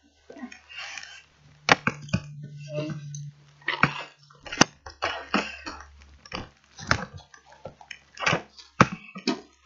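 Handling noise from a handheld phone being carried and swung about: irregular sharp knocks and clicks, about a dozen in all, with rubbing and rustling between them and a faint low hum underneath.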